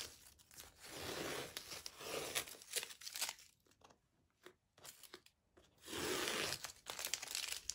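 Tape being ripped off the edges of watercolor paper in several separate pulls, the longest near the end.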